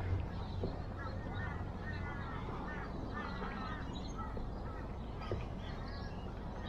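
Birds calling over and over in short chattering notes, with a steady low rumble of wind on the microphone underneath.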